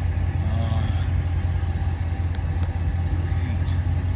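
An engine idling with a steady low hum. A faint voice is briefly heard under it.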